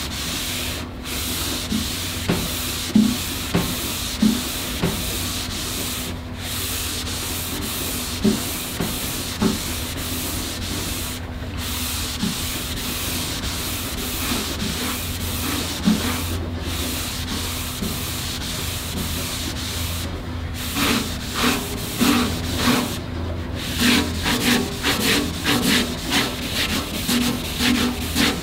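Red Scotch-Brite abrasive pad scrubbed by hand back and forth along the grain of a stainless steel grill panel, a steady scratchy rubbing broken by brief pauses every few seconds. Near the end the strokes turn short and quick.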